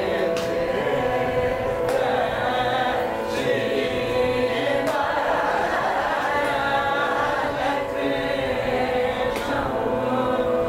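A group of voices singing a Carnatic song together in unison over a steady drone, with hand claps about every second and a half keeping the tala.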